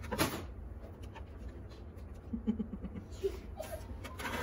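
Plastic plug adapters and cables being handled and set into a plastic cable storage box: soft clicks and rustles, with one louder knock just after the start.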